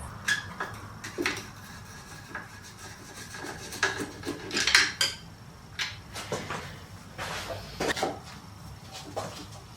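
Scattered light clicks, knocks and rubbing from handling the oil bottle, measuring jug and funnel while getting ready to add new engine oil, with a louder rustling burst about five seconds in.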